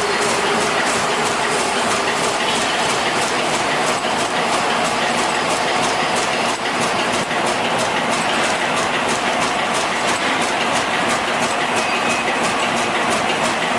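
Metal-polishing machinery running steadily and loudly, with a regular clicking several times a second.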